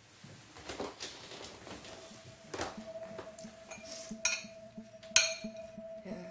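Light clinks and taps of crockery and cutlery, with two ringing clinks about four and five seconds in, the second the loudest. Soft background music comes in with a held note about two seconds in.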